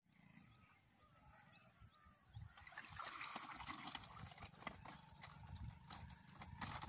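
Faint water trickling and dripping with light clicks and knocks from handling gear in a wooden boat, growing louder a couple of seconds in.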